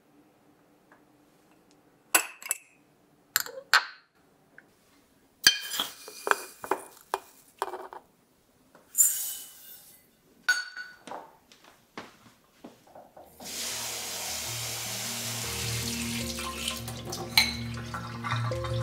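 Clinks of a glass jar and a steel measuring cup, and dry quinoa rattling into a glass bowl. About thirteen seconds in, a kitchen faucet starts running steadily, filling the bowl to rinse the quinoa.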